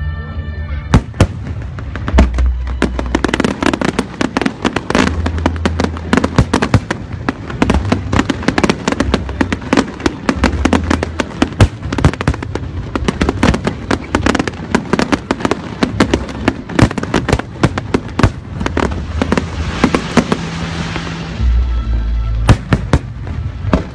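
Fireworks display: a rapid, continuous run of sharp bangs and crackling bursts, with a stretch of hissing crackle near the end, over loud music with a steady bass.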